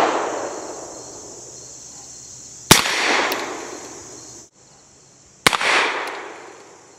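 Webley Mk VI revolver firing hand-loaded .455 Webley rounds: two shots about three seconds apart, each with a long echo fading away, following the fading echo of a shot fired just before.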